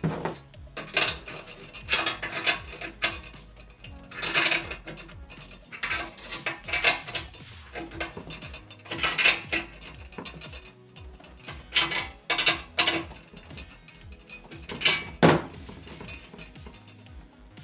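Ratchet wrench clicking in short bursts every few seconds as bolts are tightened on a metal chainsaw-mill frame.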